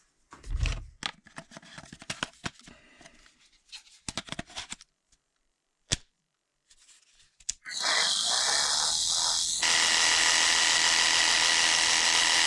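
Clicks and knocks as a battery is fitted to a Parkside PSTKA 12 A1 12-volt cordless jigsaw, then the jigsaw's motor and reciprocating blade start and run steadily for about six seconds. About two seconds after starting, the sound steps up and gets louder. It is running at full strength on a charged 4 Ah battery and sounds a hell of a lot better.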